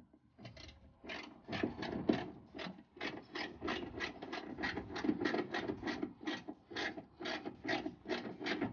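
Hand ratchet wrench tightening the spoiler's mounting nuts from under a car's trunk lid, clicking in quick, even strokes about two or three times a second.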